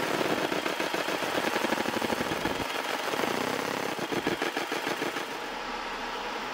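EM Smart Basic 1 20 W galvo fibre laser marking a metal block, its pulsed beam ablating the surface with a fast, dense crackling buzz. The crackle eases slightly near the end as the beam moves on to another part of the design.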